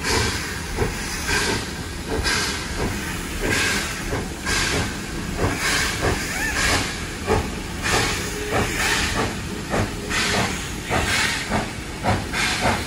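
Steam locomotive chuffing, its exhaust beats about one a second with hissing steam between them; the beats come closer together toward the end as the train picks up speed.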